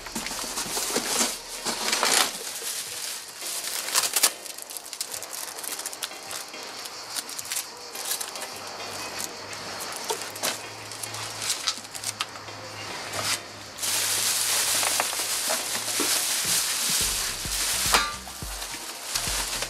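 Cardboard box flaps and bubble-wrap packaging being handled: crinkling and rustling plastic with scattered clicks and taps of cardboard, and a denser stretch of rustling near the end as the wrapped case is lifted.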